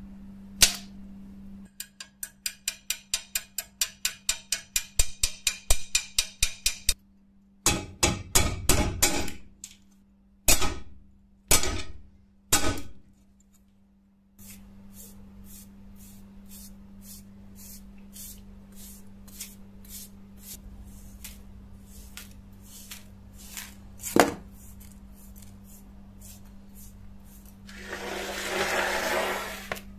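Rusty steel knife blade knocked and tapped against a stone work surface. A fast run of ringing metal taps, about four a second, is followed by several heavier knocks and scrapes, then a long row of light, evenly spaced clicks, and a short hiss near the end.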